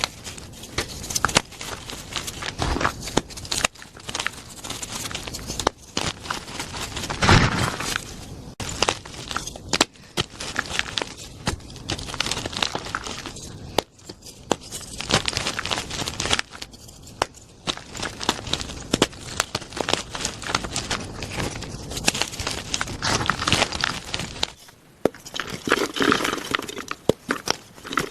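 Plain gym chalk blocks being crushed: a continuous run of crunches and crackles, with a loudest crunch about seven seconds in.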